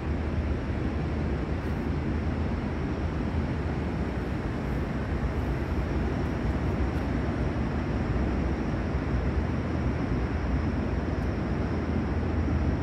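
Steady low rumbling ambient noise of a large construction site, with no distinct knocks or tones standing out.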